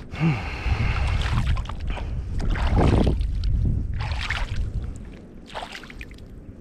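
Wind rumbling on the microphone, with water sloshing and splashing in several short rushes.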